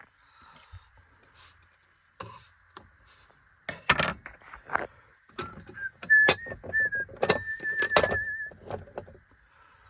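Knocks and clatter of cookware being handled, with a person whistling a few short notes and then one long wavering note.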